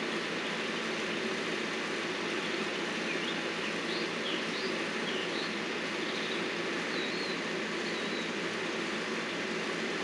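Steady running noise from landscaping equipment, with a faint steady hum under it, and a bird chirping several times in the middle.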